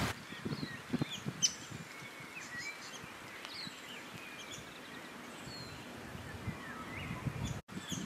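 Wild birds giving faint, scattered short chirps and brief whistles in the tree canopy, with light low rustling underneath.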